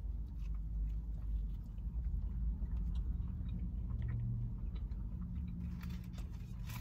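Quiet chewing and small clicks of eating, over a steady low rumble inside a parked car.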